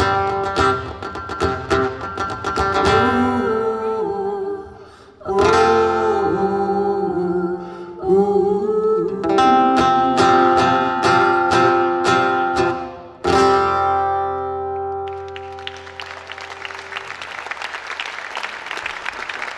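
Acoustic guitar strummed with a singing voice over it, closing on a final chord that rings out and fades about two-thirds of the way through. Audience applause follows near the end.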